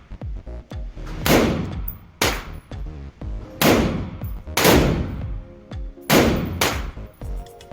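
Six shots from an AR-15 pistol with an 11.5-inch barrel, chambered in 5.56/.223, fired in slow, deliberate succession with a sharp report and a ringing echo after each. The last two come close together near the end.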